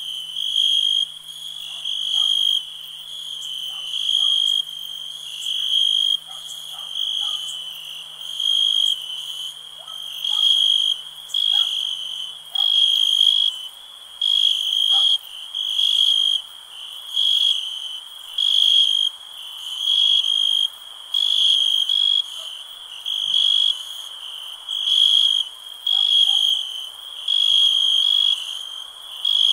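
Night-time chorus of chirping animals: a steady high-pitched chirping that swells into a louder pulse about every one and a half seconds.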